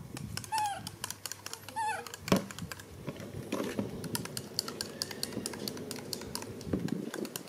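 A baby monkey gives two short, high squeaks in the first two seconds, over many small clicks and taps on a table, with one loud knock a little after two seconds.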